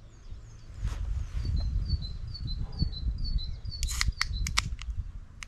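A small songbird calling a fast run of short, falling chirps, about three a second, over a low rumble of wind on the microphone. About four seconds in comes a quick cluster of sharp clicks, and one more click near the end.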